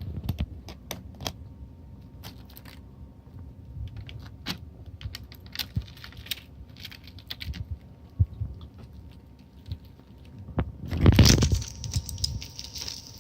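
Scattered light clicks and clinks of tableware, with a louder scraping rush about eleven seconds in.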